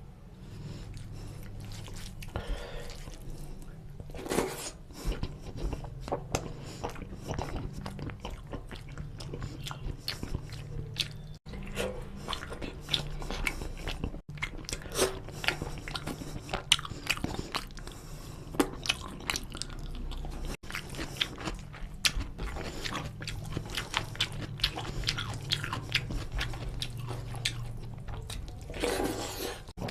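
Close-miked mouth sounds of eating rice and chicken curry by hand: wet chewing and lip smacks with frequent sharp clicks, over a steady low hum.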